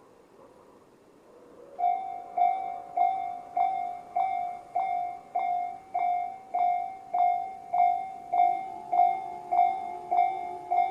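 Japanese railway level-crossing electronic warning bell, the slow-tempo Tobu "sound C" type, starts about two seconds in. It strikes a ringing tone about every 0.6 s. About eight seconds in, a second bell at a different pitch joins, so the two ring together.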